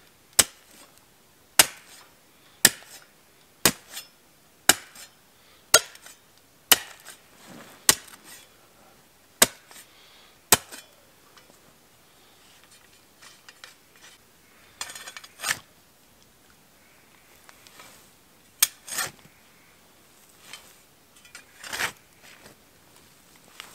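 High-carbon steel folding entrenching tool (Redcamp e-tool) chopped into hard ground, about ten sharp strikes roughly a second apart. After a pause, quieter scraping and a few more strikes come near the end as the loosened dirt is worked.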